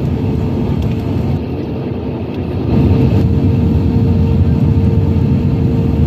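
Cabin noise inside an Airbus A319 on approach: a steady rumble of engines and airflow with a faint whine, growing louder about three seconds in and staying louder.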